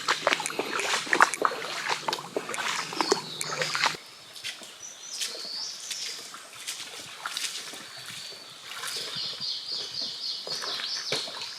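Water splashing and sloshing with many sharp knocks for about four seconds, then an abrupt change to a quieter, steady stream background. Near the end a bird sings a quick run of repeated high chirps.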